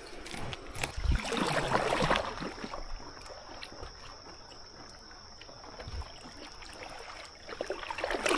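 Water splashing and sloshing against a kayak, with a burst of splashing about a second in and a couple of low knocks, then quieter trickling.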